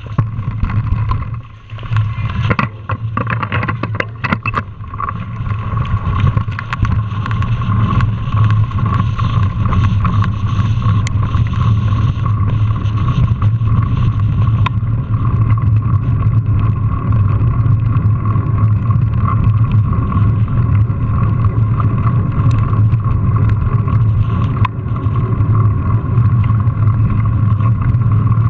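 Mountain bike ridden at speed with an action camera mounted on it: steady wind rushing over the microphone and the rumble of tyres and frame, with a run of knocks over rough ground in the first few seconds before it evens out on smooth pavement.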